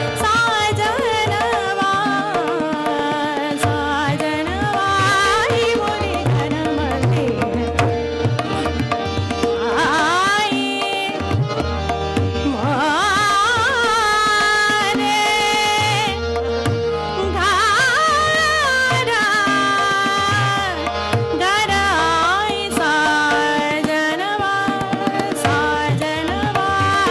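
Hindustani classical vocal in Raga Rageshree: a woman sings long gliding, ornamented phrases, accompanied by tabla strokes, harmonium and a steady tanpura drone.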